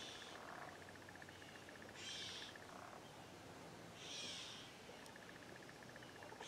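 Faint dawn outdoor ambience: a rapid, pulsing high trill that stops and starts, with soft hissing swells about every two seconds.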